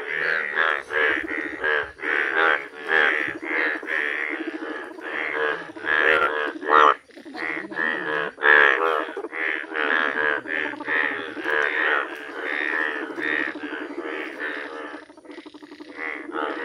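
A breeding chorus of male Indian bullfrogs calling together: many deep, overlapping croaks following one another with hardly a gap, thinning slightly near the end.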